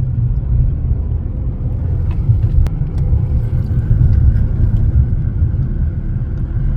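Steady low rumble of a car's engine and tyres on the road, heard from inside the moving car, with a faint click a little under three seconds in.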